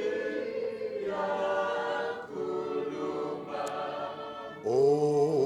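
A group of voices singing a hymn without accompaniment, holding long notes together; a stronger lead voice swells in near the end.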